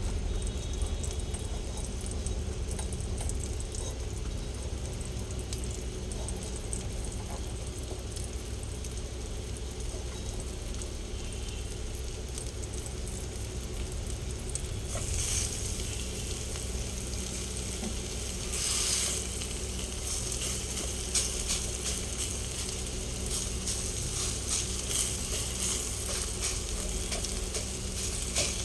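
Bottle-gourd pancake batter sizzling as it fries in oil in a pan, with a steady low hum underneath. The crackle grows busier from about halfway, with a couple of louder bursts of sizzle.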